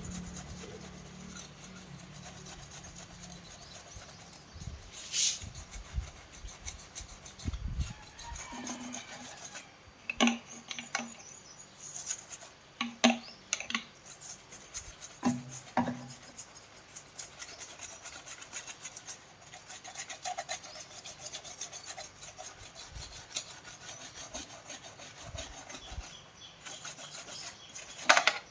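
Irregular scraping and rubbing with scattered clicks and taps, as of hand work on a piece of equipment.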